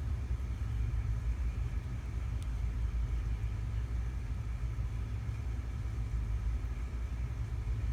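A steady low background rumble with a faint constant hum over it and no distinct events.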